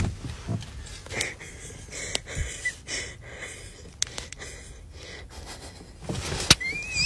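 A person breathing in wheezy, gasping breaths with sniffs, over rustling and scattered small clicks. Near the end comes a sharp click, then a high, wavering whistle-like tone.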